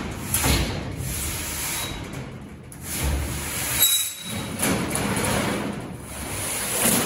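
A large 16-gauge steel sheet is dragged off a storage rack and slid across a steel table top, metal scraping and rumbling on metal. The noise eases briefly twice, about two and a half and four seconds in.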